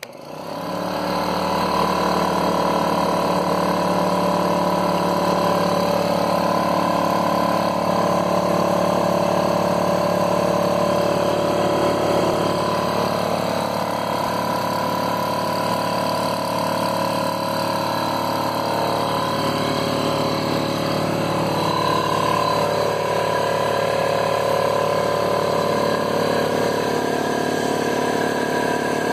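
Husky Air Scout 1.5-gallon portable air compressor (model 41004) switched on: its motor and pump start at once and run with a steady hum while pumping up the tank.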